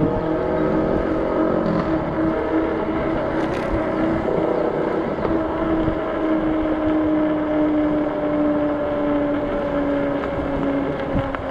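48 V fat-tire e-bike cruising on pavement: a steady hum from the drive and fat tyres, slowly sinking in pitch, over a constant rushing noise. A brief click about three and a half seconds in.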